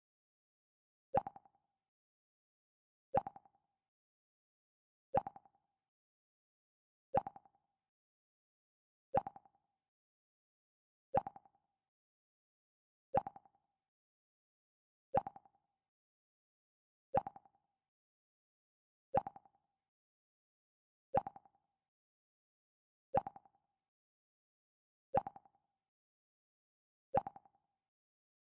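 The Mac OS X 'Pluck' sound effect: a short plucked tone that bends up slightly at its start and dies away within half a second, repeated every two seconds, fourteen times.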